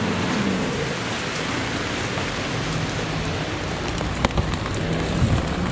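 Heavy rain pattering on the clear plastic windscreen of a VELTOP bicycle rain canopy, heard from beneath it, with a few sharper drop hits in the last couple of seconds.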